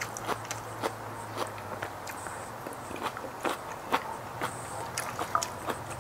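Close-miked chewing and mouth sounds of someone eating a raw salmon salad, with irregular sharp clicks about once or twice a second as a metal fork clinks and scrapes in the dish.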